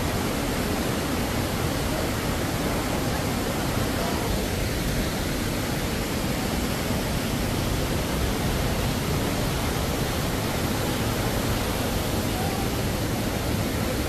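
Waterfall: falling water rushing with a steady, even hiss that does not change.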